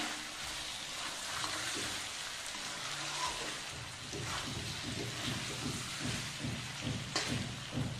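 Chicken pieces sizzling in oil in an aluminium kadhai, stirred with a metal spatula that scrapes against the pan. The scraping strokes come more often in the second half, with a sharper knock about seven seconds in.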